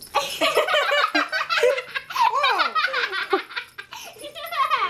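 A child laughing hard: a quick, unbroken run of high giggles that rise and fall in pitch.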